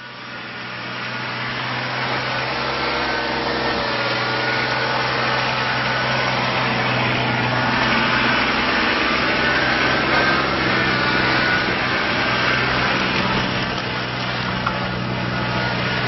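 Kubota BX25D compact tractor's three-cylinder diesel engine running steadily while the tractor drives around, fading in over the first couple of seconds.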